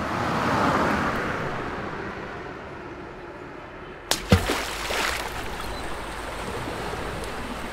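City street ambience: a wash of traffic noise swells and fades over the first couple of seconds. After a sharp click about four seconds in, a steady low traffic rumble continues with a few faint knocks.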